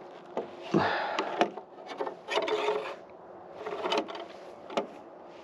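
Steel rebar being bent into stirrups on a homemade bearing-pivot bending jig: three stretches of metal scraping and rubbing, with several sharp clicks and knocks of the bar against the jig.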